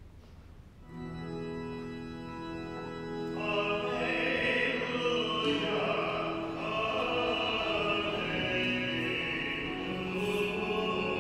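Church organ holding sustained chords, joined about three seconds in by singing over the organ.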